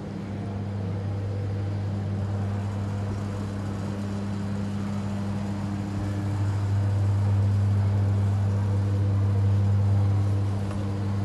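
Steady low mechanical hum with a second, higher hum above it, growing louder about halfway through and easing off near the end.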